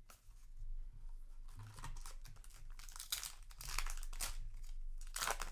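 Foil booster-pack wrapper crinkling and being torn open by hand, in irregular rustles that grow loudest in the second half.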